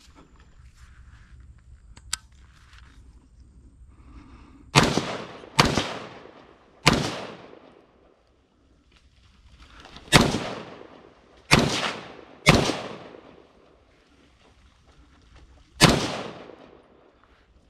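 Seven gunshots fired at feral hogs, each fading off in an echo. Three come within about two seconds, three more follow a few seconds later, and a last one lands near the end.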